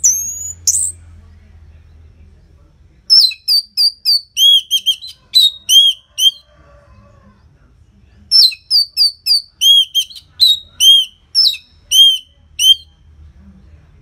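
Orange-headed thrush singing: two fast runs of loud, clear whistled notes, each a few seconds long, the second starting about eight seconds in, after two short calls at the very start.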